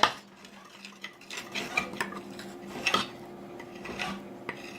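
A utensil clinking and scraping in a bowl as shampoo-and-baking-soda slime is stirred, in scattered light taps.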